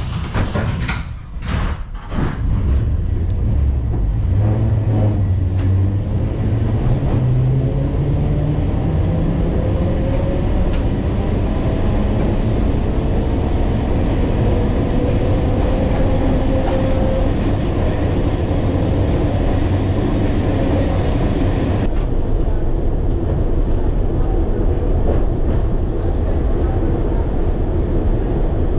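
Old TMK 101 tram ride. A few knocks as the doors shut, then the traction motors whine and rise in pitch as the tram pulls away and speeds up, over a steady rumble of wheels on the rails. The running rumble carries on to the end.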